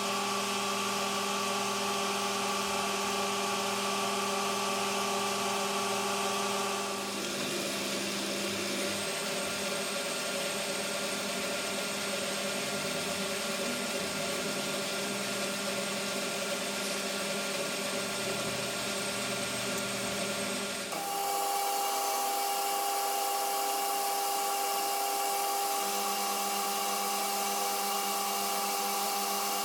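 Metal lathe running steadily, turning down a 4140 steel bar with a continuous whine. The sound changes abruptly about 7 seconds in and again about 21 seconds in.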